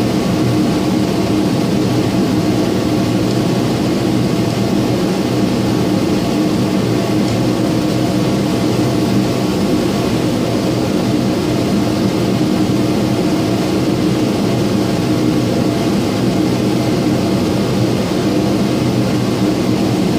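Steady mechanical drone of a running motor or fan, loud and even with a low humming note that holds one pitch.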